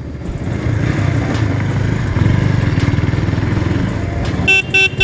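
KTM Duke's single-cylinder motorcycle engine running with a steady low pulse, and a vehicle horn giving a few short toots near the end.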